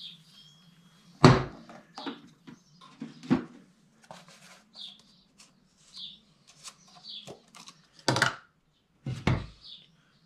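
Handling noise on a metal-topped workbench as a tube and a grease tub are picked up, opened and set down: a few sharp knocks and clatter, the loudest about a second in and two more near the end. Faint short high chirps come in between them.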